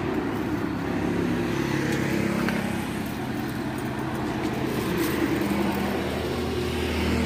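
An engine running steadily, its hum holding at one level, with a low drone underneath that cuts off abruptly at the very end.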